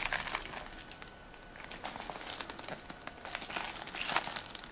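Plastic shrink-wrap on a sealed trading-card booster box crinkling as it is turned over in the hands. The crackles and rustles come irregularly, loudest right at the start and again about four seconds in.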